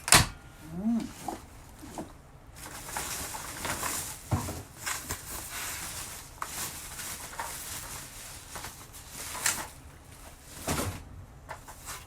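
Packaging being handled during an unboxing: a sharp knock at the start, then a long stretch of plastic and cardboard rustling and crinkling with several knocks and clicks, easing off near the end. About a second in there is a brief rising-and-falling call.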